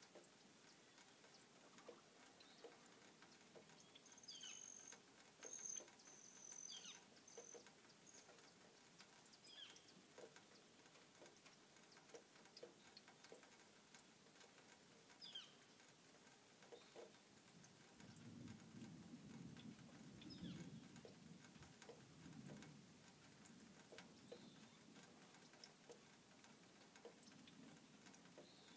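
Near silence: faint outdoor quiet with scattered light ticks and a few faint high chirps, and a soft low rumble for a few seconds about two-thirds of the way through.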